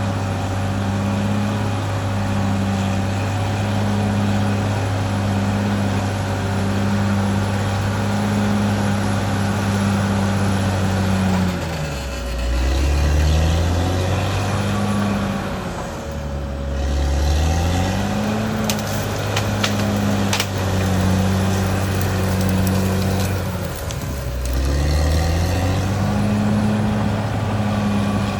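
Caterpillar D6R XL bulldozer's diesel engine running steadily, its pitch dropping and recovering three times, with a steady whine above it and a few sharp clicks around the middle.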